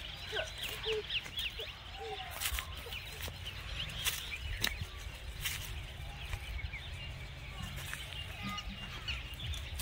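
Birds chirping: many short, quick chirps over a steady low rumble, with a few sharp clicks.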